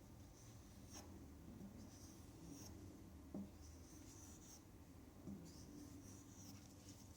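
Faint, soft swishes of a Kershaw Cryo folding knife's blade drawn across a compound-charged leather strop, roughly one stroke a second, with a few light clicks between strokes.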